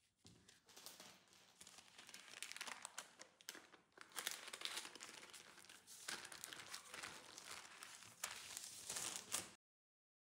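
Baking paper and disposable plastic gloves crinkling and rustling as the paper is lifted to fold a sheet of dough over its filling. The rustling is dense and crackly and cuts off suddenly near the end.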